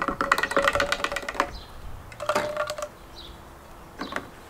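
A plastic pour spout is seated and its threaded collar screwed onto a plastic gas can, giving rapid plastic clicking and creaking. There is a dense run for about a second and a half, a shorter burst about two seconds in, and a few clicks near the end.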